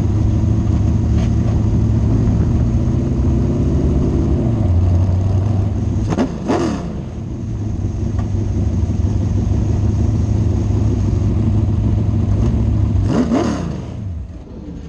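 Open-wheel race car's engine running at low speed, blipped twice, about six and thirteen seconds in, each a quick rise and fall in pitch. After the second blip the engine sound drops away.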